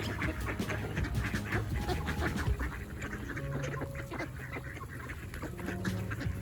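Ducks and geese at a lake calling over and over in short quacks and honks.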